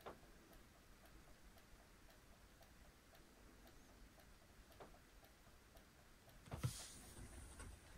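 Faint, steady ticking of a wall clock in a near-silent room. A soft knock sounds right at the start, and a louder single thump comes about six and a half seconds in.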